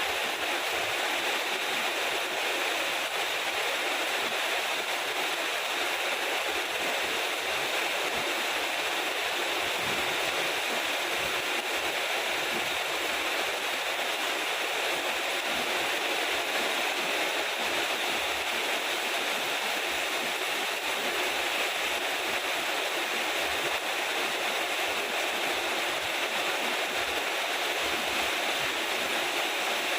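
Steady rainfall, an even hiss that holds at the same level throughout.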